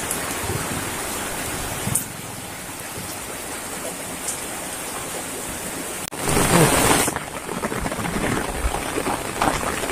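Heavy rain falling steadily on wet ground, an even hiss. About six seconds in, a louder burst of noise lasts about a second.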